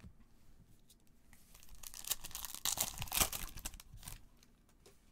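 Foil wrapper of an Upper Deck Marvel Vibranium trading-card pack being torn open by hand, a run of crinkling and tearing. It builds about a second and a half in, is loudest around three seconds in, and dies away just after four seconds.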